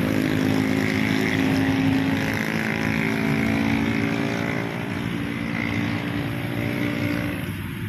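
Motorboat engine droning steadily, then fading away near the end.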